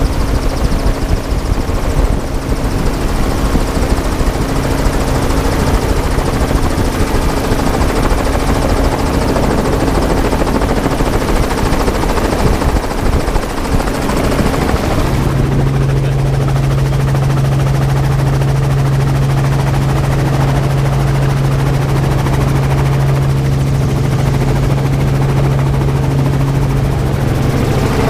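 Helicopter rotor and engine noise heard from inside the cabin as it comes in to land. About halfway through, the higher hiss drops away and a strong steady low hum comes in as the helicopter settles onto the ground.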